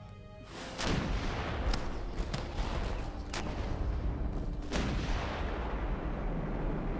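Muzzle-loading fort cannons firing: a heavy boom about a second in, then a run of sharp reports and another strong boom near the end, over a continuous low rumble.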